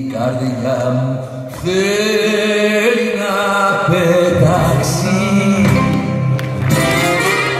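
Live Greek popular music: a sung melody over piano and acoustic guitar accompaniment.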